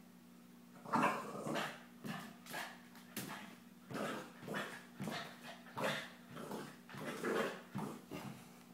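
Boston Terrier giving a quick string of short play barks and growls, about two a second, starting about a second in, while wrestling with a cat.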